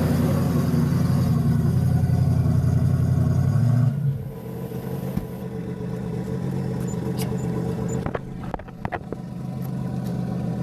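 LS V8 engine running at raised revs, then settling to a lower, quieter idle about four seconds in, with a few sharp clicks near the end.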